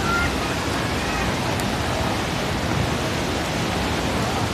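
Steady rushing of a river's white-water rapids pouring over and between boulders.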